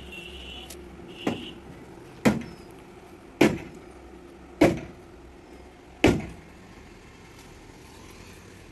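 Heavy logs being unloaded and striking one another: five sharp wooden knocks about a second apart, each with a short ringing tail.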